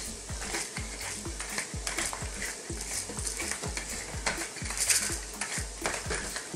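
Black peppercorns being ground in a hand-twisted pepper mill, a crunching grind repeating about three times a second. Under it, onions sizzle as they fry in oil in the pot.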